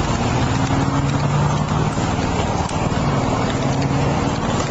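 Vehicle engine idling close by, a steady low hum with a fast low pulsing throughout.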